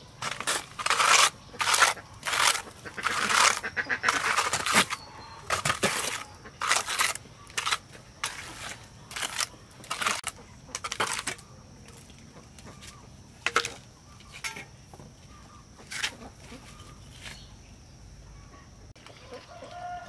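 Plastic float scraping and slapping across wet concrete in repeated hand strokes, one to two a second. After about eleven seconds the strokes thin out to a few isolated scrapes.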